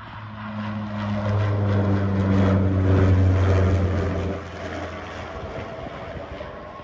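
Propeller aircraft flying over: a low, steady engine-and-propeller drone that grows louder to a peak about three seconds in, then fades away.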